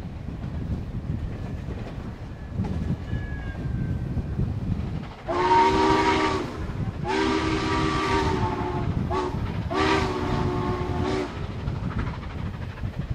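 Southern Pacific 4449's steam chime whistle sounding a chord of several notes in two long blasts, a short one and a long one, the grade-crossing signal. Underneath runs the rumble of the moving train, with wind on the microphone.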